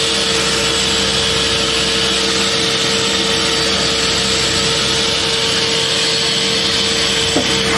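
The turboprop engines of a CAL FIRE Air Attack plane, heard from inside the cockpit as the plane taxis. They make a steady, loud whine with a constant droning tone and a strong hiss. A short rising squeak comes near the end.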